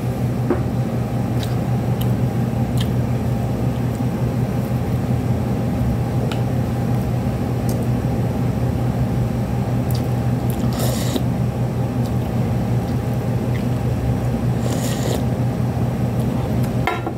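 Steady low mechanical hum at an even level, with a few faint clicks and two brief hissing sounds about eleven and fifteen seconds in.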